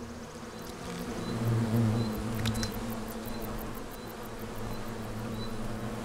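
A swarm of bees buzzing steadily around tree sap, the hum swelling about a second and a half in, with one sharp click about midway.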